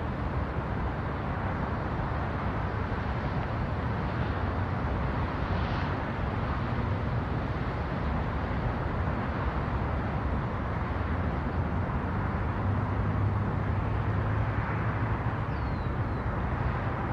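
City street traffic: a steady, even rush of many cars passing, with a low hum that grows a little stronger in the second half.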